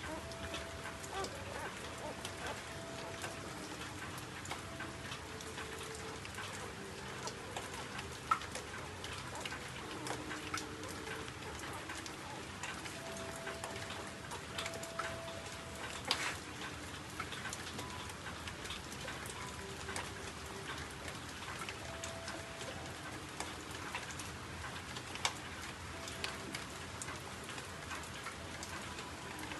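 Steady rain with a patter of scattered sharp drips, a few louder than the rest. Faint held tones that shift in pitch every second or so sit underneath it.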